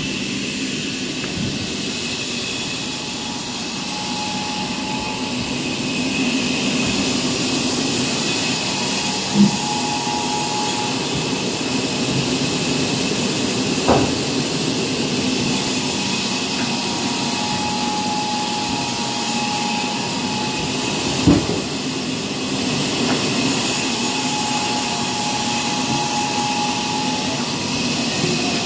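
Large log band saw running and cutting poplar logs, a loud steady hiss with a thin whine that comes and goes in three stretches of a few seconds. Three sharp knocks stand out along the way.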